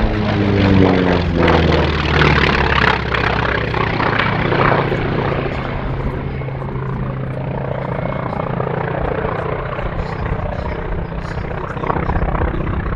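Grumman Wildcat's radial piston engine and propeller droning in flight overhead. The engine note falls in pitch over the first two seconds as the aircraft passes, then holds steady.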